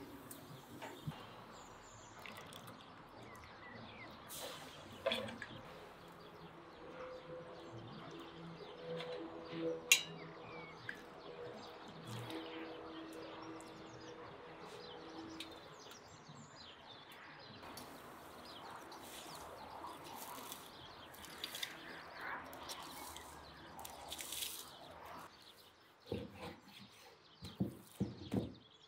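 Birds chirping over quiet outdoor cooking sounds: a whole cabbage turned with a fork in a steaming pot on a wood-burning stove. Near the end a large knife slices through raw beef on a wooden cutting board in several short strokes.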